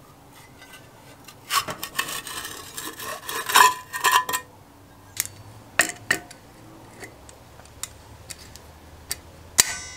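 Rusty steel air filter cover scraping, rattling and clinking against the small engine's cast body as it is worked loose and pulled off, for about three seconds. A few sharp metal clicks follow, then near the end one sharp clank with a brief ring.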